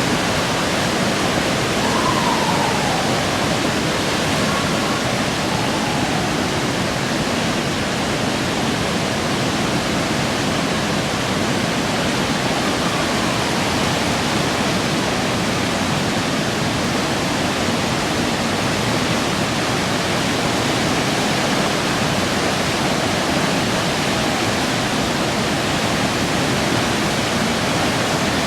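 Steady rushing of floodwater, an even unbroken roar of flowing water.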